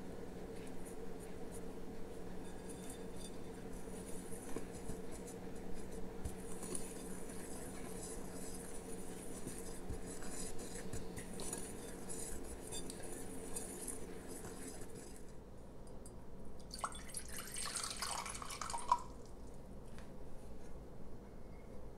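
A finger stirring dry rye and white flour in a ceramic mixing bowl makes a faint, fine rustling and scraping, over a steady low hum. About three-quarters of the way through, a short cluster of clinks and a brief scraping burst.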